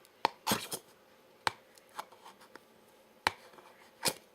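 Flat screwdriver edge of a Leatherman Juice multi-tool scraped hard across a piece of soft plastic, gouging it. About six short, sharp strokes, with a longer scrape about half a second in.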